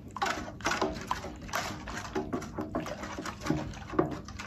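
Spatula stirring foamy liquid in a stainless steel bowl, scraping and sloshing against the metal in rough strokes about two a second, with short squeaks. The thickening powder just added makes the scrape gritty, like sand.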